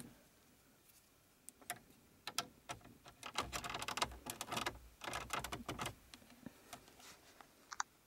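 Light clicks and rustles of a USB cable being handled and its plug pushed into an Aukey 3-port USB car charger. They begin about a second and a half in, are densest in the middle few seconds, and thin out near the end.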